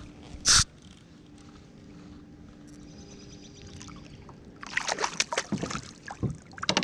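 Water splashing and sloshing around a kayak as a hooked largemouth bass is fought, in irregular bursts that get loud in the last two seconds. A single short, sharp burst about half a second in is the loudest sound.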